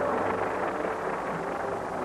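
A steady rushing noise, with faint music tones underneath.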